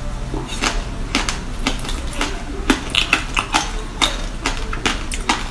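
Close-miked eating of coloured ice domes: irregular sharp crunches and cracks as the pieces are bitten and chewed.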